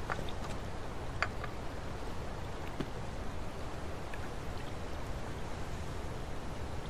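Steady hissing background noise, with a few faint ticks about a second in and again near four seconds.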